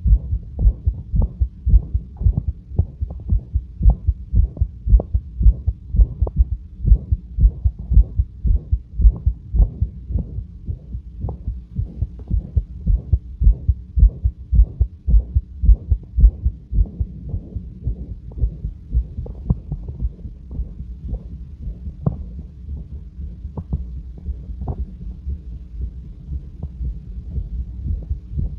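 A human heart heard through a stethoscope, beating calmly and regularly at rest, with a loud, harsh whooshing murmur running through the beats. The murmur is a constant feature of this heart.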